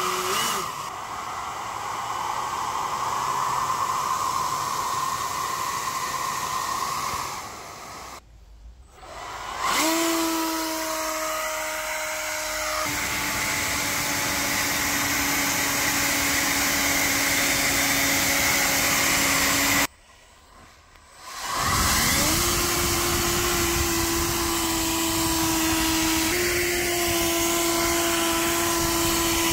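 3D-printed ducted fan driven by a high-speed brushless motor, running with a steady whine over a rush of air. Twice it goes quiet and spins back up with a rising whine, and the pitch steps slightly as the speed changes.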